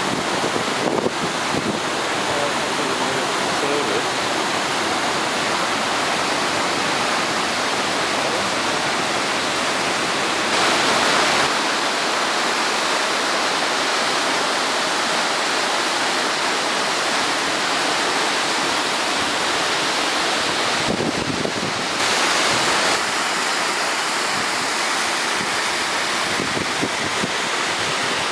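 Waterfall and fast-flowing creek water rushing in a steady, even roar, swelling slightly twice for a second or two.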